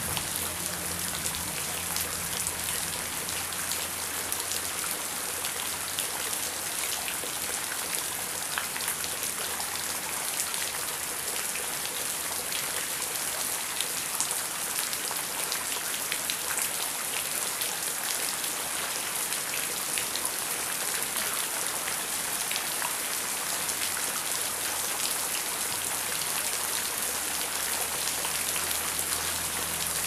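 Heavy rain falling steadily: a dense hiss with many individual drops ticking through it. A low rumble underneath fades out in the first couple of seconds and comes back near the end.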